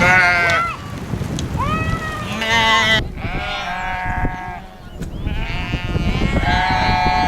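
A flock of sheep bleating, with about five calls in quick succession, some overlapping.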